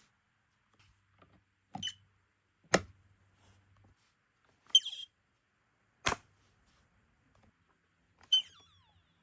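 Smoke alarms giving their dying chirps: three single short high chirps, about three seconds apart, the warning that a unit's battery is running out. A sharp click falls between each pair of chirps.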